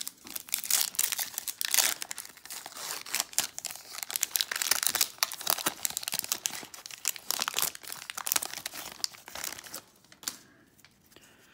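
Foil wrapper of a Topps Holiday baseball card pack crinkling and tearing as it is ripped open by hand. A dense run of sharp crackles goes on for about ten seconds and stops shortly before the end.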